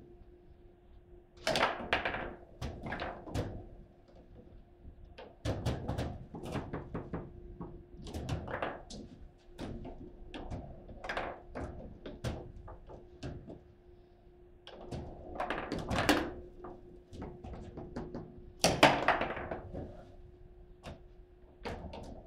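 Foosball table in play: the ball and the plastic players strike each other and the table, and the steel rods knock against the frame, making irregular rapid clacks and thunks. There are louder flurries about two seconds in, around sixteen seconds, and a hardest bang near nineteen seconds, over a faint steady hum.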